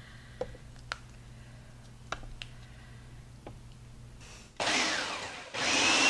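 Electric food processor pulsing graham cracker crumbs with melted butter to make a crust mixture: a short pulse about four and a half seconds in, then a second pulse starting just before the end with a steady whine. Before the motor runs there are only a few faint clicks.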